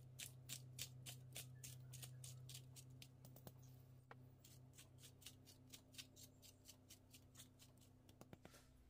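Pepper mill grinding black pepper: faint, rapid crunching clicks, several a second, over a low steady hum.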